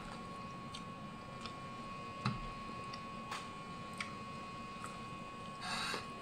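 Eating sounds of someone biting kernels off a buttered corn cob on a plate with the mouth alone: scattered soft clicks and bites, a sharper knock about two seconds in, and a short noisy rush near the end.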